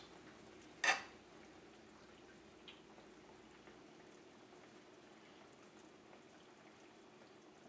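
A spoon clinks once against the sauté pan about a second in as sauce is scooped up to taste. Otherwise only a faint steady hum.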